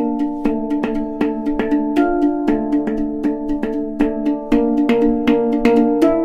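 Background music: sustained chords over a quick, regular percussive tapping beat.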